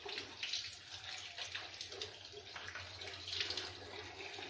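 Cold tap water running steadily onto cooked elbow macaroni in a stainless steel mesh strainer and splashing into the sink as the pasta is rinsed.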